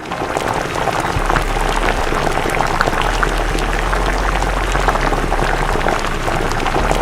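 Food sizzling and bubbling as it cooks, a dense steady crackle.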